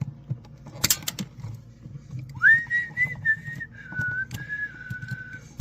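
A person whistling a short tune of a few held notes that step down in pitch, starting a little past halfway. A sharp click about a second in and light ticks of handling work under it.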